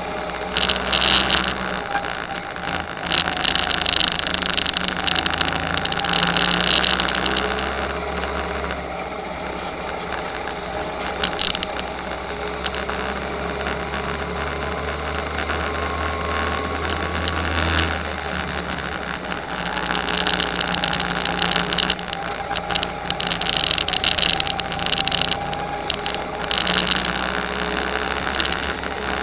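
Go-kart's small engine running at speed, its note rising and falling through the laps, with stretches of rattling clatter from the kart.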